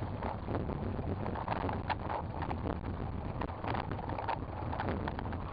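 Bicycle rolling along a gravel road: steady wind noise buffeting the microphone, with tyres crackling and popping over loose gravel.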